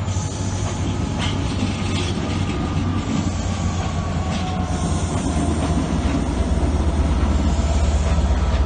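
Train running by on the rails: a steady mechanical rumble that grows louder near the end, with no horn sounding.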